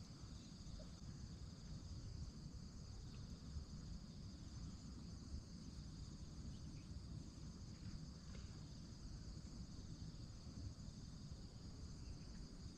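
Steady, faint chorus of crickets chirring, with a low rumble underneath.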